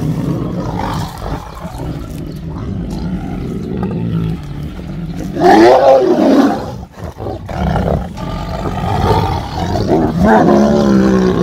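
Several Siberian tigers growling and snarling over meat, with a low rumbling growl throughout and two loud snarls, one about halfway through and one near the end.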